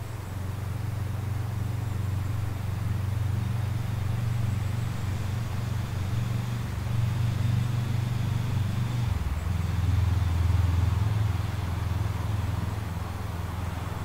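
Low engine rumble of a passing motor vehicle, building up, shifting in pitch about nine seconds in, then peaking and fading.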